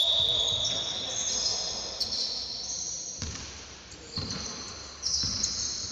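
Basketball game on a wooden court: sneakers squeaking in high-pitched, shifting chirps, with a few separate thuds of the ball bouncing and feet landing about a second apart.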